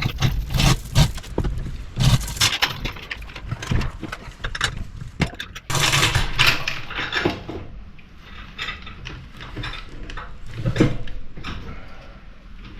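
Irregular metal clanks, knocks and scraping as an engine is worked into place on its stand's motor mounts, with a denser rattling stretch about six seconds in.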